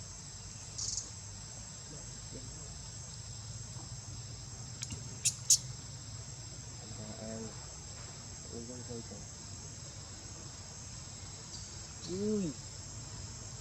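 Steady high-pitched insect chorus over a low hum. Two sharp clicks come about five seconds in, and a few short rising-and-falling calls or voice sounds follow later, the clearest near the end.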